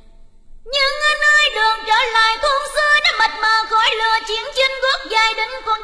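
A woman singing Vietnamese cải lương in a sliding, ornamented voice. Her singing starts about a second in, after a brief hush.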